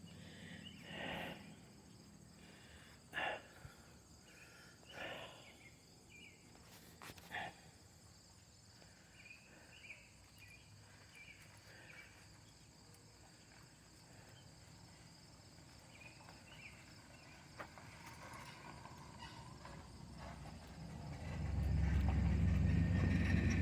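Quiet rural outdoor ambience with a few soft knocks and faint high chirps, then a loud low rumble that comes in about twenty seconds in and holds.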